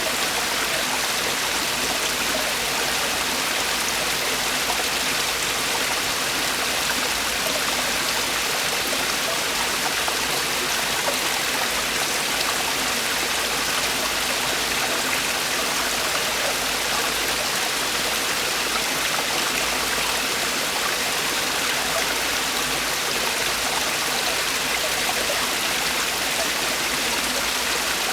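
Mountain stream water falling and rushing over rocks in a valley, a steady, unbroken splashing rush.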